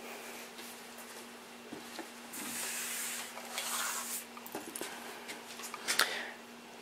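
Faint rustling and a few light clicks and taps of things being handled at a workbench, over a steady low hum.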